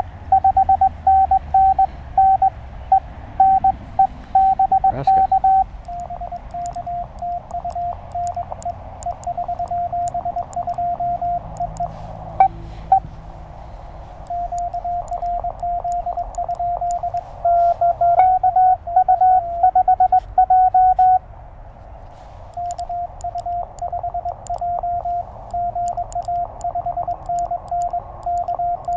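Morse code tones from a Penntek TR-35 transceiver on 20 meters, over steady band hiss: a louder, slightly higher-pitched keyed tone, the operator's own sidetone, at the start and again after about 17 seconds, trading turns with quieter, slightly lower-pitched incoming code from a station answering.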